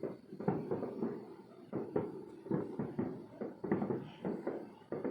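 Fireworks going off in the distance: an irregular run of short pops and bangs, several a second.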